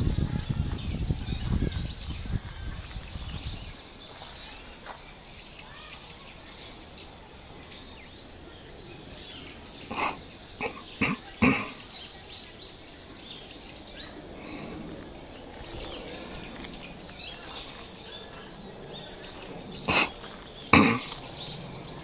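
Quiet woodland ambience with faint, short, high bird chirps and a steady high insect-like tone. A low rumble fills the first few seconds. Sharp knocks come in a quick cluster of four about ten seconds in and twice near the end, the loudest sounds here.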